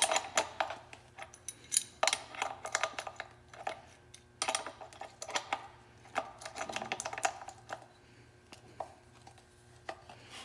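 A wrench tightening the nut on a bulkhead fitting through a fuel pump hat. Metal clicks and clinks come in about four short bursts, then a few scattered clicks near the end.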